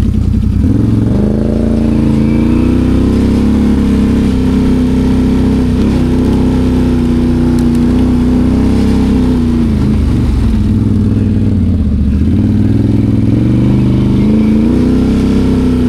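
Can-Am Outlander 850 XMR ATV's V-twin engine running under varying throttle. Its pitch rises about a second in and holds steady, dips for a couple of seconds past the middle, then climbs again near the end.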